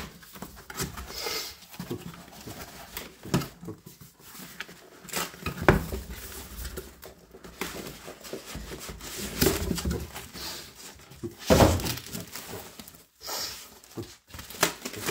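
Unpacking noise as a cardboard shipping box is opened and a clear plastic tarantula enclosure in its plastic wrap is lifted out: irregular rustling and scraping, with a few louder knocks, the strongest around the middle and about two-thirds of the way through.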